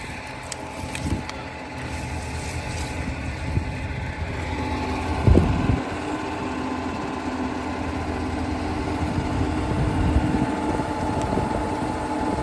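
Tractor engine running steadily while working a leek lifter. There is a single heavy knock about five seconds in, after which the engine hum is steadier.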